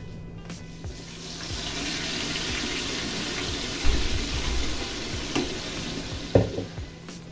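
Liquid poured from a stainless-steel pot into a hot frying pan of chilli paste: a steady sizzling hiss that swells after about a second and fades near the end. A knock of the pot against the pan comes about four seconds in, and another sharper knock near the end.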